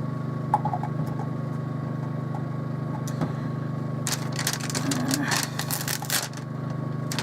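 A Honda portable generator's engine hums steadily in the background. About four seconds in, a burst of crackling and rustling begins as plastic packaging and tape are handled, lasting a couple of seconds and starting again near the end.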